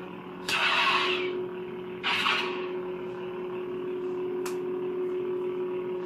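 Custom lightsaber's Nano Biscuit sound board playing its steady blade hum through a 28mm bass speaker, with two swing swooshes set off by the blade's motion, about half a second and two seconds in. A light tick comes near the four-and-a-half-second mark.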